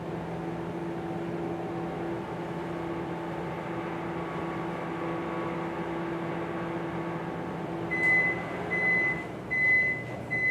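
Microwave oven running with a steady hum while it heats a cup of milk. The hum stops near the end, and the oven gives four short high beeps to signal the end of the heating cycle.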